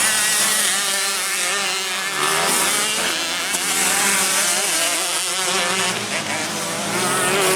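Several dirt-bike engines revving, their pitch rising and falling as they race around a grasstrack circuit.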